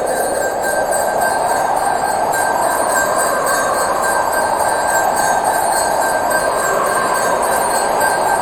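Pooja hand bell (ghanti) rung continuously: a loud, steady ringing with high bell tones held throughout and no separate strikes standing out.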